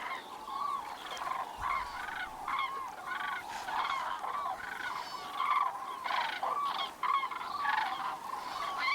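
A flock of common cranes calling, many loud trumpeting calls overlapping one another.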